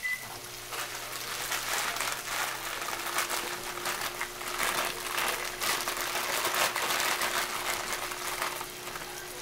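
Chicken breasts frying in butter in a nonstick skillet, sizzling with dense crackling that eases off near the end.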